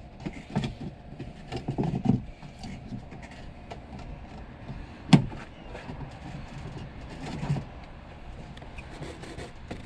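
Scattered clicks, knocks and rustling of hands working on the fuel pump assembly and its fittings, with one sharp knock about five seconds in.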